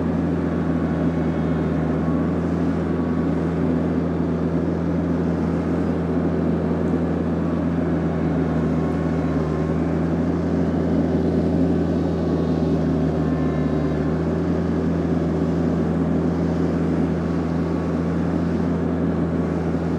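TYM T474 compact tractor's diesel engine running steadily at working speed.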